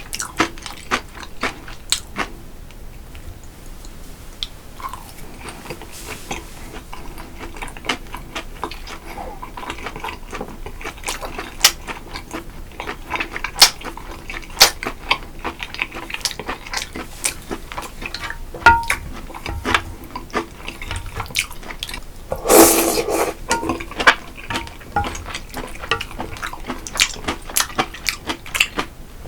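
Close-miked eating of spicy noodle soup: wet mouth clicks and smacks with utensils tapping against the bowl, and a loud slurp lasting about a second roughly three-quarters of the way through.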